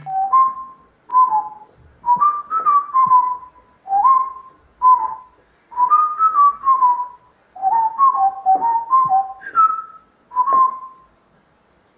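A person whistling a tune in short notes, some sliding up or down in pitch, in phrases with brief gaps, stopping shortly before the end. A few soft knocks sound underneath.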